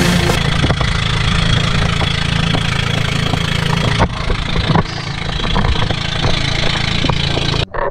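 Motorized outrigger boat's engine running steadily under way, with wind and rushing water over a steady hiss. The sound cuts off abruptly near the end.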